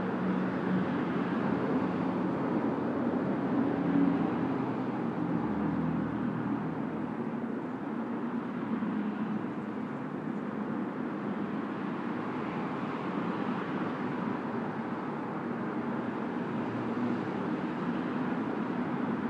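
Steady distant road traffic: a constant rush of cars with a low engine hum, swelling about four seconds in as a louder vehicle goes by.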